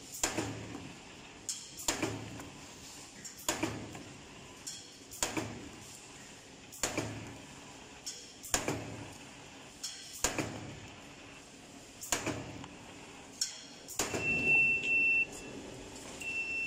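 SURE SR-QJG automatic hose cutting machine cutting white hose to length: its air-cylinder-driven blade snaps through the hose with a sharp clack about every 1.7 seconds. Near the end a steady high beep sounds twice.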